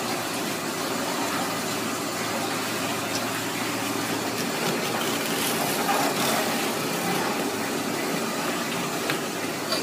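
Steady mechanical hum and hiss, like a fan or motor running, with a few faint clicks.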